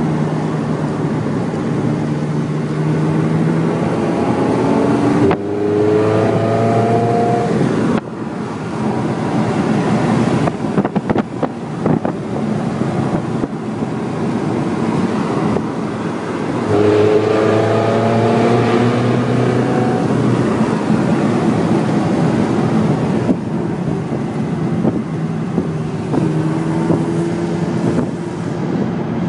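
Ferrari engine accelerating hard several times, its pitch climbing through each gear and dropping at the upshifts, under loud wind and road noise.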